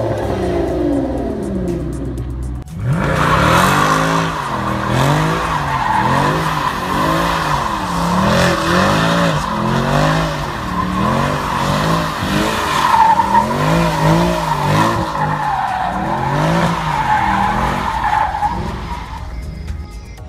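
Aston Martin DBS V12 revved, each rev falling away. Then a car doing donuts: the engine rises and falls over and over, about every second, under a steady tyre squeal that fades out near the end.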